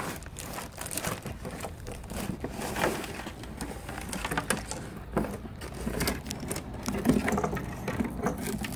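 Irregular rustling, crinkling and knocking of packaging being handled: a power supply in a plastic bag slid out of its cardboard box, and its bundle of sleeved cables lifted out and shaken loose.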